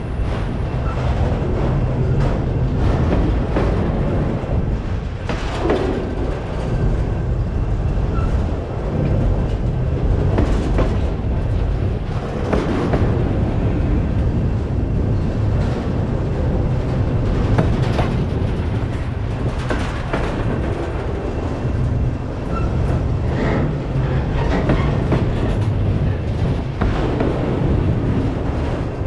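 Freight train cars rolling past, with a steady low rumble of wheels on rail and occasional sharp knocks.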